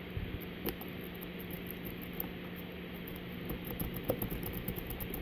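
A lock pick rake scraping rapidly back and forth over the pin stack of a Master Lock Magnum M187 padlock, making a fast run of light clicks that grows denser in the second half. The raking is not setting the pins, and the lock stays shut. A steady low hum runs underneath.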